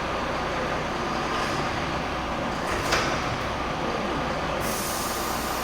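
Steady machine noise with a single knock about three seconds in; a higher hiss joins near the end.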